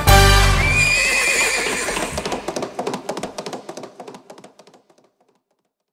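A horse whinnies as the song's last low note dies out about a second in, then hoofbeats go off into the distance, fading out about five seconds in.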